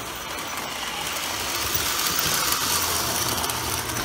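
1954 Lionel electric toy train running on its metal track: the locomotive's motor and gears whirring, with the wheels clattering over the rails, getting louder over the first two seconds or so.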